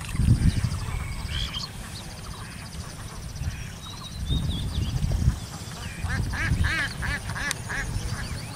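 Birds calling: a few high chirps, then near the end a run of about six quick repeated calls, over a low gusty rumble.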